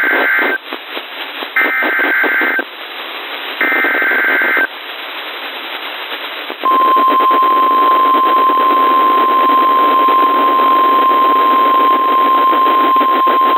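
NOAA Weather Radio emergency alert heard over the air with radio hiss: the end of one burst of warbling data tones and two more about a second each (the SAME digital header), then a steady, loud, high warning alarm tone begins about six and a half seconds in. The sequence announces a new warning broadcast.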